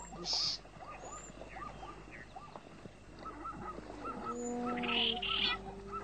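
Cheetah cubs chirping: short, high, bird-like calls repeated about twice a second, with a longer held nasal call around the fifth second and a few brief hisses.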